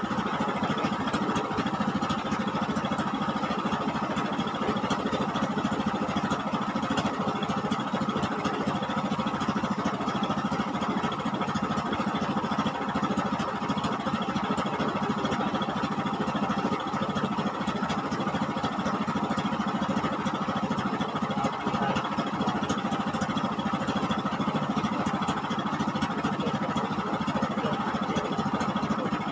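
An engine running steadily at a constant speed, with no revving or change in pitch.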